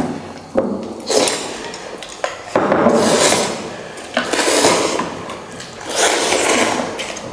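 People slurping instant noodles in repeated noisy slurps about a second long each, with a few sharp clicks of chopsticks against bowls in between.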